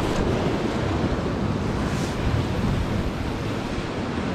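Sea waves washing against the rocks, with steady wind noise on the microphone.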